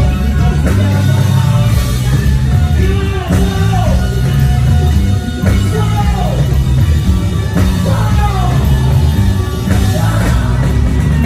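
Rock band playing live on stage: electric guitars and drum kit with a singer's voice at the microphone, heard loud from the side of the stage.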